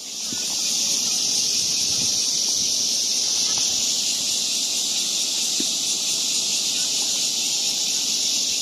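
Loud, steady, high-pitched insect chorus, a continuous shrill buzz without pauses, easing off near the end.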